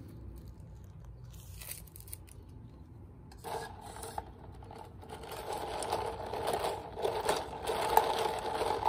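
A plastic straw is pushed through the dome lid of a cup of iced coffee and stirred, scraping and squeaking against the plastic lid while the ice rattles. A brief rustle comes first, and the scraping grows louder through the second half.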